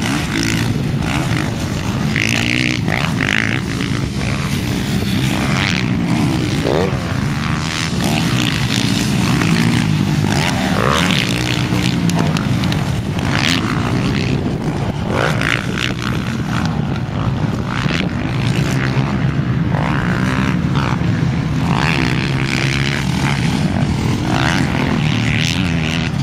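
Motocross dirt bike engines racing round a dirt track, several machines at once, their pitch rising and falling over and over as the riders open and shut the throttle.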